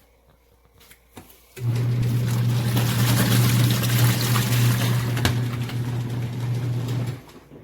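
Costway twin-tub portable washing machine running: a steady motor hum with water churning and splashing, starting about one and a half seconds in and stopping a little before the end.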